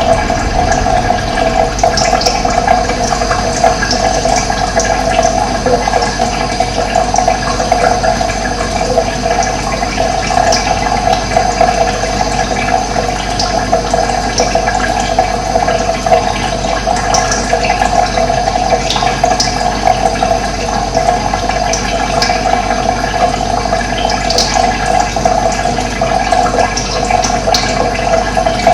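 Steady rushing of flowing water, with brief high bird chirps scattered through it.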